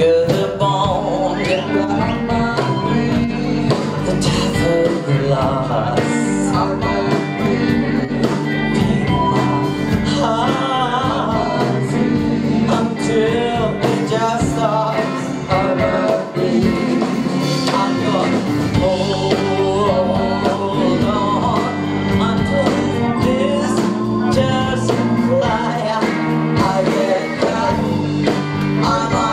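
Live rock band playing a song: electric guitar, bass guitar, drum kit and keyboards, with a woman singing lead.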